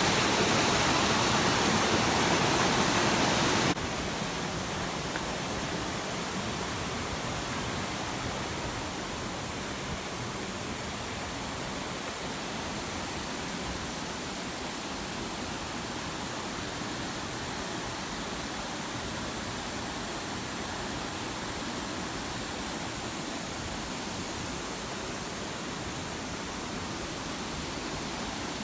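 Waterfall, a steady rush of falling water that drops suddenly to a quieter level about four seconds in.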